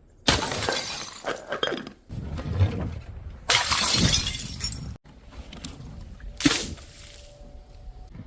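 Glass bottles shattering: a run of loud crashes and tinkling shards, joined by abrupt cuts. A sharper smash comes about six and a half seconds in, followed by a faint ringing tone.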